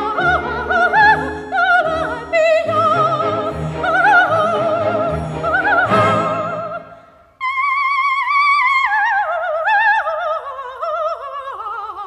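Operatic classical music: a high voice sings with a wide vibrato over low accompaniment. About seven seconds in, the music breaks off for a moment, and a high voice carries on without the low accompaniment, its melody stepping downward.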